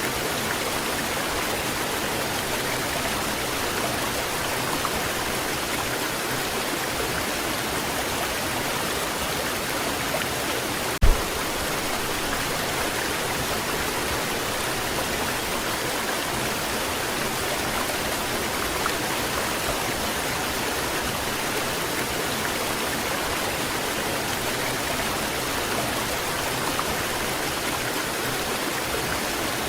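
Waterfall rushing steadily, an even wash of falling water. One brief low thump about a third of the way in.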